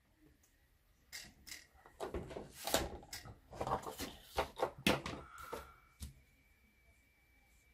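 Irregular clicks, taps and soft scuffs of a foam sponge dauber being dabbed into a small pot of chalk paint and the pot handled, for about five seconds. After that only a faint steady high tone remains.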